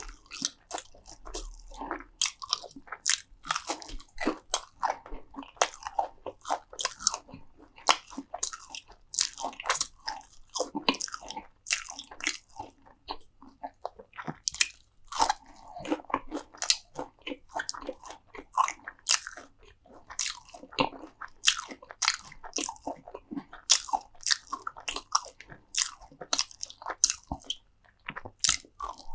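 Close-miked chewing and biting of crunchy food, a dense run of crisp, irregular crunches with wet mouth sounds between them.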